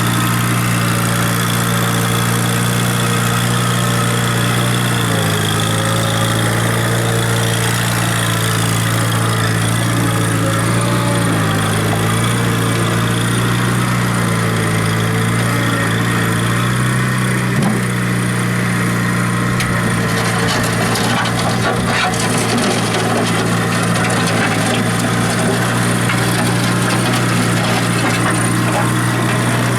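John Deere 90 skid steer engine running steadily, its speed dipping briefly a few times as the machine works, with scattered clicks and rattles in the second half.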